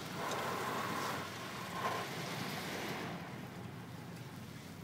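Touch-free car wash spray jets hissing against the car's body and windows, heard muffled from inside the cabin, dying down after about three seconds. A thin steady whine runs under the spray for the first couple of seconds.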